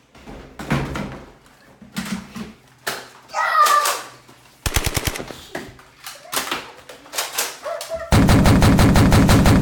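Rapid automatic fire in two bursts: a short burst about halfway through and a longer, louder one near the end, after a few scattered thumps and a brief shout.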